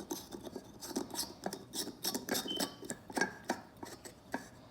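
Small light bulb being screwed into its socket by hand: a run of quick, irregular light clicks and scrapes of glass and metal on the threads.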